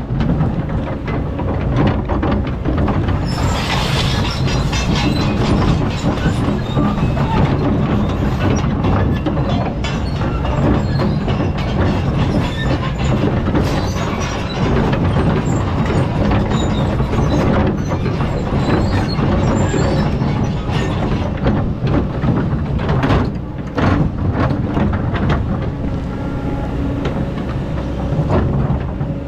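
Excavator's diesel engine running steadily under load, with repeated metallic clanks and knocks as it digs sand. A brief rush of scraping or pouring noise comes about three seconds in.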